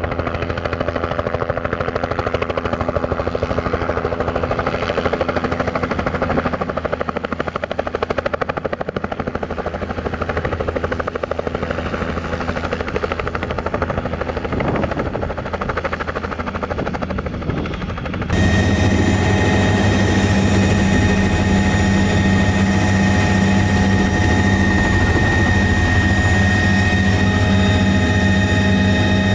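Bell 505 Jet Ranger X helicopter hovering low and setting down, its main rotor beating over the turbine. About two thirds of the way through it cuts to a louder, steadier sound from inside the cabin: a constant low drone with a steady high tone from the turbine.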